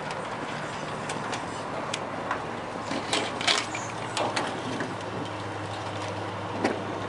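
A steady mechanical hum with a light hiss, with scattered light clicks and knocks. The loudest cluster of clicks comes about three seconds in.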